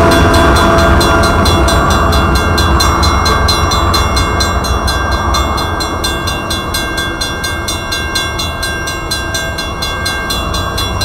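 Railroad crossing bell ringing in rapid, even strokes over the low rumble of a freight train that slowly fades as the train moves away.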